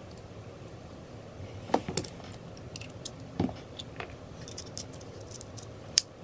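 Scattered small clicks and taps of a plastic computer mouse, its tiny screws and a screwdriver being handled on a desk during reassembly, with the sharpest click near the end.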